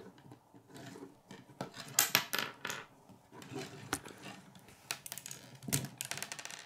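K'nex plastic rods and connectors clicking and clattering as they are handled and snapped together, with a cluster of sharp clicks about two seconds in and a quick rattle of clicks near the end.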